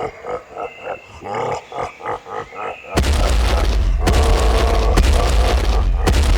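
A short run of rhythmic beats, then a dinosaur roar sound effect about three seconds in: a loud, deep, rumbling roar that starts suddenly, with a boom and a couple of sharp hits in it.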